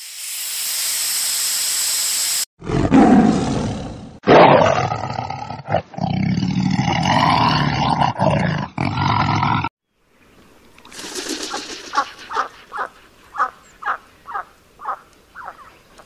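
A steady hiss for a couple of seconds, then a lion roaring and growling loudly for about seven seconds with abrupt cuts. After a short gap, a chicken clucks in short calls, about two a second.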